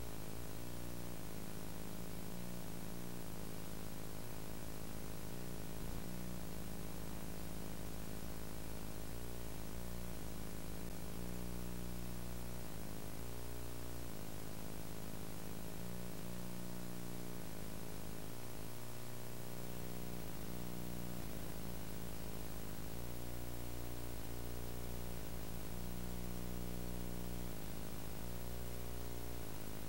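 Steady hiss with a low electrical hum underneath: the playback noise of a VHS tape with no soundtrack.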